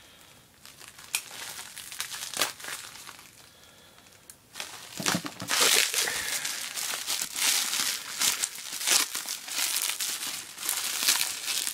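Plastic bubble wrap crinkling as it is handled by hand: a few scattered crinkles and light clicks at first, then continuous crinkling from about five seconds in.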